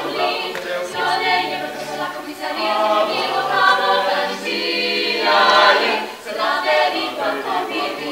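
Mixed student chamber choir singing a cappella in harmony, with men's voices holding low notes under the upper parts in sustained phrases.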